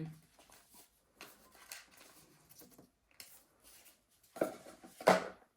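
Cardboard packaging and paper inserts of a DJI Mic 2 box being handled: faint rustles and scrapes, then two louder handling knocks near the end, the second the loudest.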